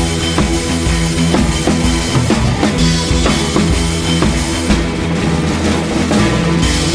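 Background music: a band with a drum kit keeping a steady beat over sustained bass and instrument notes.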